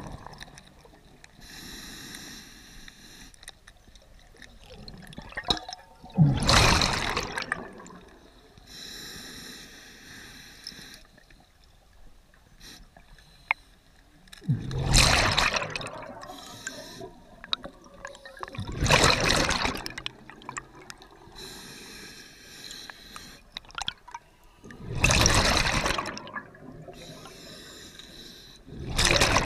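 Scuba diver breathing through a regulator underwater: a thin hiss on each inhalation, then a loud rush of exhaled bubbles, about five breaths.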